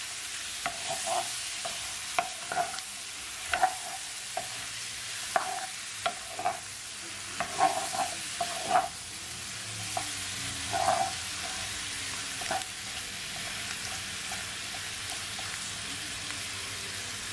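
Chicken wings sizzling in hot oil in a nonstick pan while a wooden spoon stirs them, scraping and knocking against the pan many times. The stirring stops about 13 seconds in, leaving only the steady sizzle.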